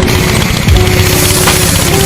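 Background music with held notes and a deep, repeating bass-drum beat.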